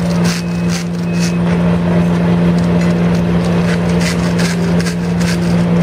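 Concrete mixer truck's diesel engine running steadily with a low hum, under repeated scrapes and knocks of hand tools on rubble and concrete. A run of short high beeps, about one every 0.7 seconds, stops about a second and a half in.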